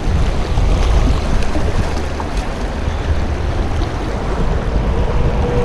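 Fast, shallow river riffle rushing and splashing close to the microphone, a steady loud wash of moving water.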